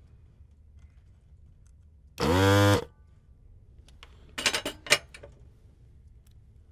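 Vacuum pump of an electric desoldering gun buzzing once for about half a second as it sucks molten solder off the LED wire joint. A few sharp clicks of handling follow a couple of seconds later.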